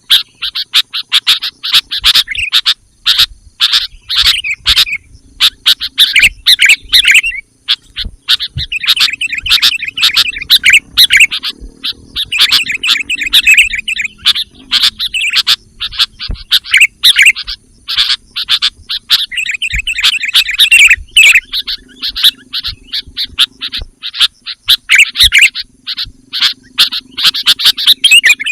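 Sooty-headed bulbuls (kutilang) calling: loud, dense runs of short chirping notes with only brief pauses between the runs.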